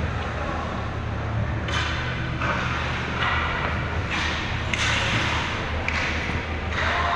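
Ice hockey skates scraping and carving the ice in a run of short hissing strokes, starting about two seconds in, over a steady low arena hum.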